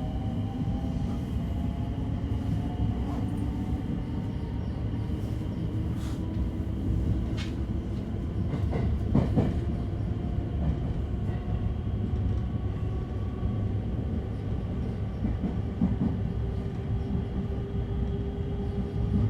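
Onboard running sound of a JR 223 series electric train accelerating: the whine of its Hitachi IGBT-VVVF inverter and traction motors rises slowly in pitch over a steady rumble of wheels on rail. A few short clicks from the wheels pass over the track near the middle.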